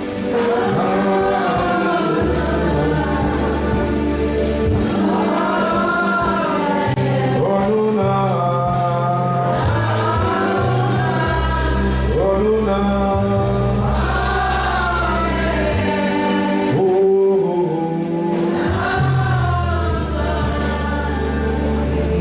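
Gospel singing by a group of voices, with a steady bass line of held notes underneath.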